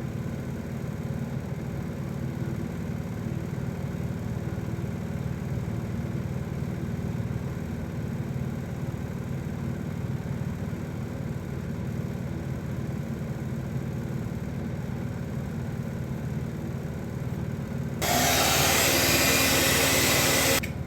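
A steady low mechanical hum. About 18 s in, a loud hiss starts suddenly, lasts nearly three seconds and cuts off sharply.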